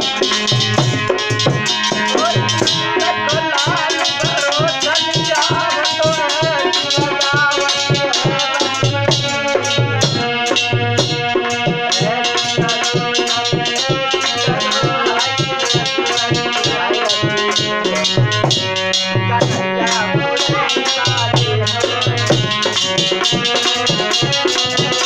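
Bhajan music: a dholak drum keeps a steady, even beat under held tones and an ornamented, wavering melody line.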